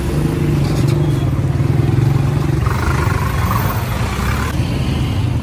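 Street traffic close by: a motor vehicle engine running steadily, its low rumble loudest about one to two seconds in, over a constant hiss of road noise.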